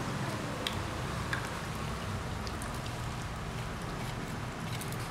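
Steady low background hum with a few faint, scattered clicks and taps from baby macaques picking fruit out of a wooden bowl.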